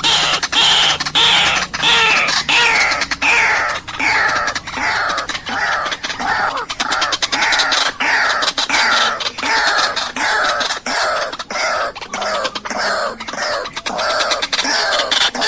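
White-breasted waterhen (ruak-ruak) giving its loud, harsh call: a run of croaking notes, each falling in pitch, repeated about twice a second, with sharp clicks among them.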